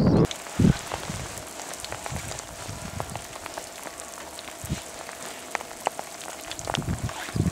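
Rain falling on a hard surface: scattered irregular drop ticks over a steady hiss, during a thunderstorm. A loud wind-like roar cuts off suddenly about a quarter second in.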